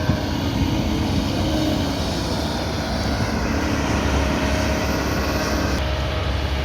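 Kobelco 220 excavator's diesel engine running steadily under working load, with a humming tone that drifts slightly in pitch.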